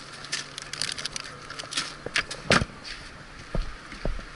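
Plastic bag crinkling and rustling as gloved hands work inside a plastic cooler. There is one loud knock about halfway through, then a few low thuds near the end.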